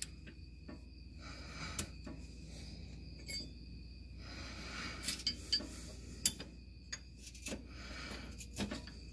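Scattered light clicks and clinks as the Cobb rear motor mount's bushing spacer and billet aluminium mount are handled and fitted into place by hand, over a faint steady hum.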